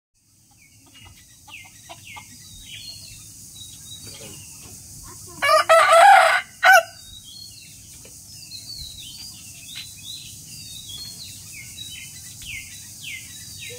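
A rooster crowing once, about five and a half seconds in, one loud crow lasting about a second and a half. Small birds chirp faintly throughout.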